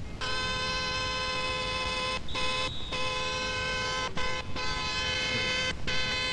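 Pickup truck's horn blown in long, repeated blasts, each held for one to two seconds with short breaks between, to call someone out.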